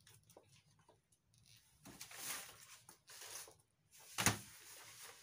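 A large sheet of chart paper rustling as it is handled, in two swells about two and three seconds in, then a single sharp thump about four seconds in, the loudest sound.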